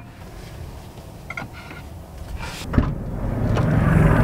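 Clicks and a thud from an SUV's door being opened and shut, the thud a little under three seconds in. A steady low hum rises in near the end.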